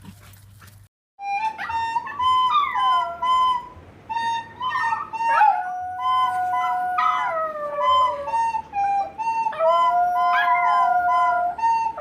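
A dog howling along with a wind instrument. From about a second in, the instrument plays held notes while the dog's howls slide up and fall away over them.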